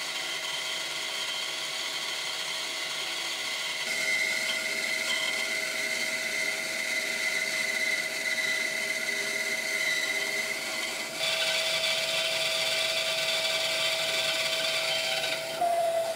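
Rikon 10-305 benchtop bandsaw with a 3/16-inch 4 TPI skip-tooth blade cutting through a thick glued-up wood blank: a steady motor and blade hum with the hiss of the cut. It gets louder about four seconds in and changes tone about eleven seconds in.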